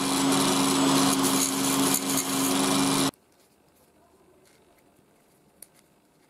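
Small electric motor spinning an abrasive grinding disc, running steadily with a hum and a high hiss, stopping abruptly about three seconds in. After that it is nearly quiet, with one faint metallic click as nuts are handled on a bolt.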